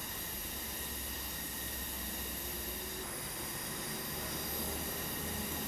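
Steady, breathy rush of air blown continuously through a bendy drinking straw to hold a ball floating above its split end.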